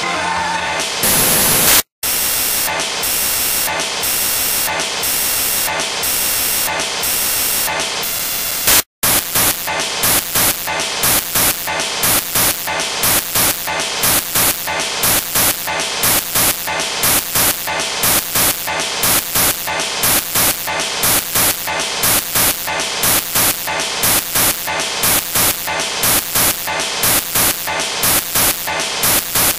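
Loud, harsh static over the whole range of pitch, cutting out completely for an instant about two seconds in and again about nine seconds in, then pulsing at roughly three beats a second: a garbled, corrupted audio track.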